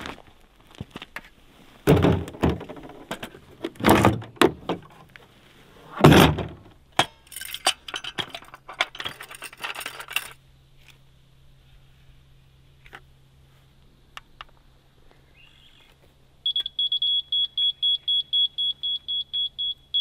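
Several loud clattering knocks and thumps, then, starting about three-quarters of the way in, a laser-level receiver on a grade rod beeping rapidly in short, even, high-pitched beeps.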